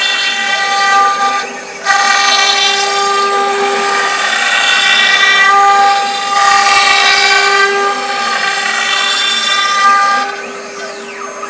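Mini CNC router whining steadily at one pitch while it cuts foam, its loudness swelling and easing every few seconds as the tool moves. Near the end it drops quieter, with faint rising and falling tones.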